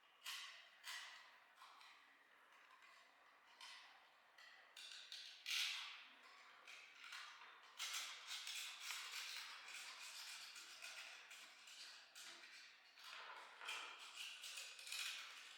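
Light, irregular clicks, taps and scraping from hand work on parts, with a denser stretch of scraping in the middle.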